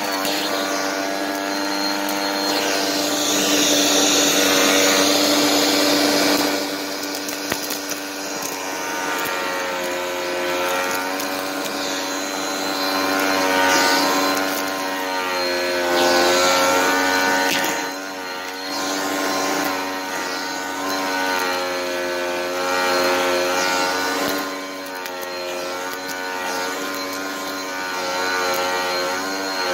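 Vacuum cleaner running with a crevice tool on carpet. Its motor whine shifts up and down in pitch and loudness, with crunchy crackles as dry dirt and crumbs are sucked up.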